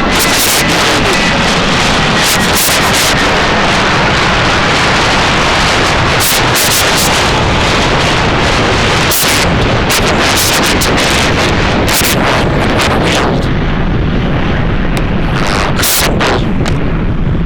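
A dense barrage of gunfire and explosions: a continuous loud wall of noise packed with many sharp cracks and bangs.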